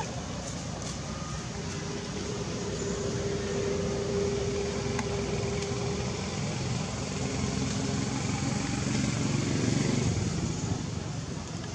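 A motor engine running steadily with a low hum, its pitch shifting partway through and growing louder near the end.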